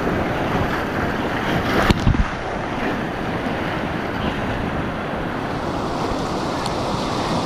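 Whitewater rapids rushing steadily around an inflatable kayak, with wind noise on the microphone. A single short, sharp hit about two seconds in.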